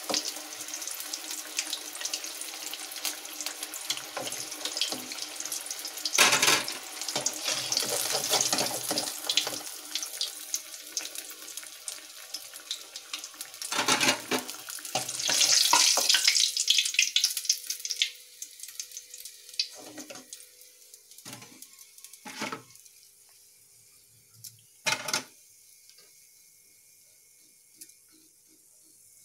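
Marinated fish pieces deep-frying in hot oil in a kadai: a dense, crackling sizzle that swells twice and dies down after about 18 seconds as the pieces come out of the oil. Near the end come a few separate knocks and clinks of utensils.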